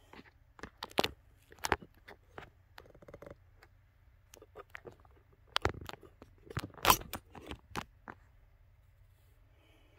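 Handling noise from a handheld camera being moved about: irregular clicks, taps and short rustles. The loudest knocks come about a second in and again around seven seconds.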